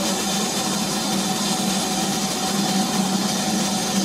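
Standing 2-6-4 Class 4 tank steam locomotive hissing steadily as steam escapes, with a constant low hum underneath.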